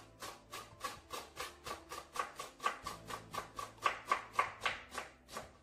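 Kitchen knife chopping leek on a wooden cutting board: a steady run of sharp knocks, about four a second.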